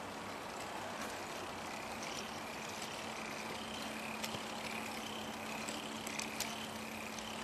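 K'nex kinetic sculpture's plastic gears turning, driven by a small electric motor: a steady whir with a low hum, short high squeaks from about two seconds in, and a few sharp clicks.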